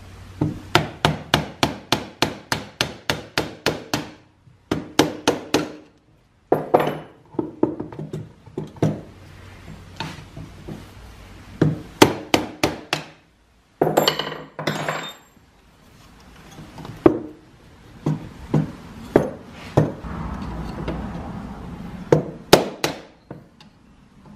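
Quick runs of sharp metal taps and knocks, about four a second at first, then shorter groups and single knocks with pauses between. They come from work with a screwdriver on the parts of an old Pickering steam-engine governor being taken apart.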